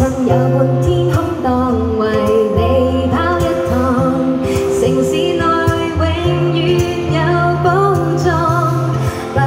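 A woman singing a Cantonese pop song live through a microphone and PA, with acoustic guitar accompaniment and held low bass notes underneath.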